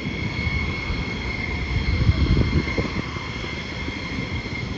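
Jet aircraft engines running, a steady high whine over a low rumble that swells about two seconds in.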